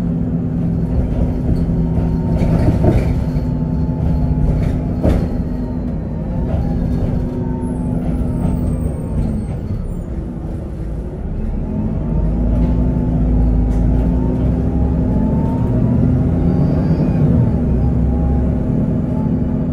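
Interior drive noise of an Otokar Vectio C bus: its Cummins ISB6.7 six-cylinder diesel and Voith automatic gearbox running under way, with a steady engine drone. The engine eases off about halfway through, then pulls strongly again, with a few sharp rattles from the body early on.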